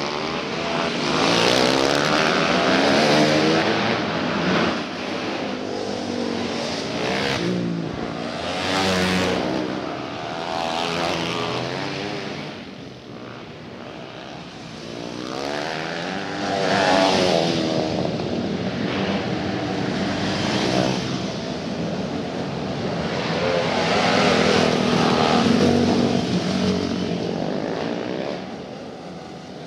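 Several 250cc cage karts running on the dirt oval at pace speed under the yellow flag before the start. Their engines swell and fade over and over as the field comes past and goes away.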